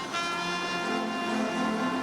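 Band music led by brass instruments, playing held chords that move from note to note.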